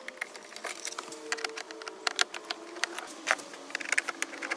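Irregular small clicks and taps of a screwdriver working out the screws of a dashboard's plastic instrument-cluster surround, metal ticking against trim.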